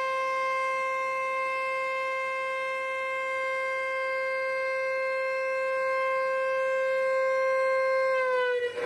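Weir discharge warning siren sounding one long steady tone, warning that a sluice gate is about to open and release water. The pitch sags slightly about eight seconds in, near the end.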